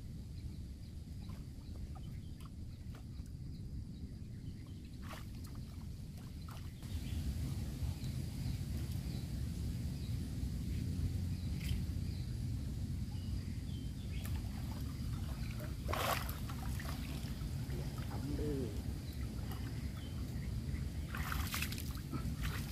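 Water splashing and sloshing as a man moves through shallow, weed-choked pond water and wades out, with a few sharper splashes about five, sixteen and twenty-one seconds in. Under it runs a low steady rumble that grows louder about seven seconds in.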